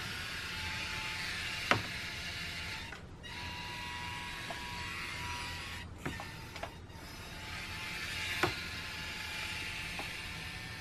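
Small electric drive motor of an RC model submarine running with a steady buzzing whine, cutting out briefly about three seconds in and again around six to seven seconds in, with a few sharp clicks.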